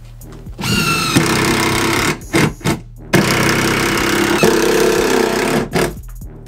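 Cordless impact driver driving screws into wood framing lumber: it spins up with a rising whine, runs for over a second, gives two short blips, then runs for about two and a half seconds before a last short blip.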